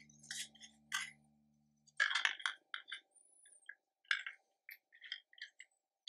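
Small plastic clicks and taps as the Nuki smart lock's drive module, with its gears and circuit board, is handled and fitted into the black plastic housing. A quick cluster of clicks about two seconds in is the loudest, with scattered lighter ticks before and after.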